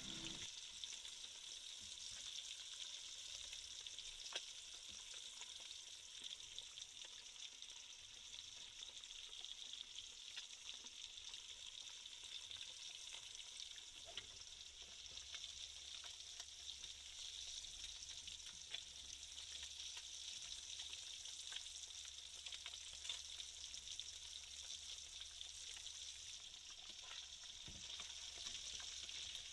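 Masala-coated fish frying in hot oil: a faint, steady sizzle with scattered small pops and crackles.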